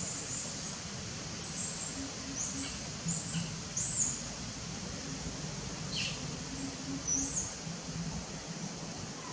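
Short high chirps, about eight at irregular intervals, over a steady outdoor hiss.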